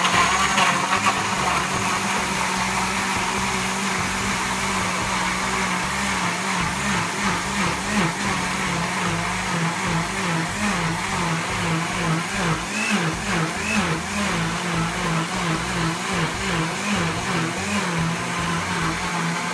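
Philips countertop blender motor running under load, blending strawberries, banana and partly frozen soy milk. From about seven seconds in, its pitch wavers up and down over and over as the motor bogs and recovers: the blender is struggling, which the owner captions as the blender dying.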